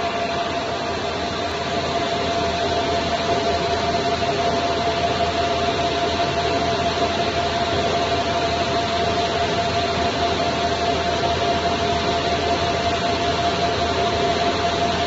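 CO2 laser marking machine running while it burns a logo into a wood board: a steady machine noise with a constant mid-pitched tone, a little louder from about two seconds in.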